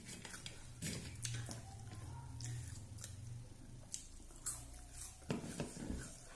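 A person eating rice and curry by hand: chewing and wet mouth noises with small clicks and taps, and a low hum for a couple of seconds about a second in.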